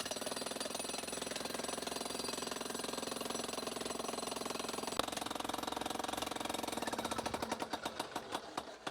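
Jackhammer breaking concrete: rapid, steady hammering that slows into separate blows near the end and then stops, with one sharper knock about halfway through.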